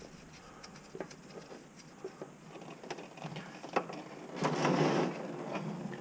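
Hands unscrewing an already-loosened spin-on oil filter under a 5.7 L Hemi: scattered light clicks and handling noises, with a short rush of noise about four and a half seconds in.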